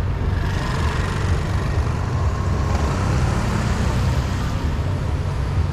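Car driving on rain-wet streets: a steady low road and engine rumble, with a hiss that swells about half a second in and fades again after about four seconds.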